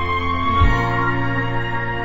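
Instrumental backing music holding a sustained chord, with a deep bass note coming in about half a second in.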